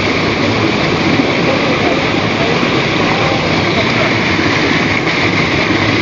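Steady rush of a small waterfall pouring through a narrow cleft in dark, hard volcanic rock, heard close up.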